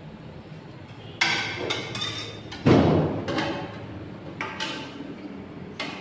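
Aluminium cookware knocking and clanking on a gas stove as a pot and wok are handled: a few irregular knocks with short ringing, the heaviest a dull thump near the middle.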